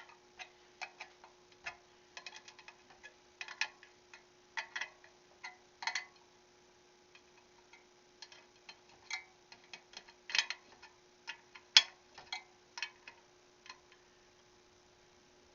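Irregular metallic clicks and ticks of a spoke wrench working the spoke nipples of a motorcycle wheel as the spokes are tightened, some clicks coming in quick clusters. A faint steady hum runs underneath.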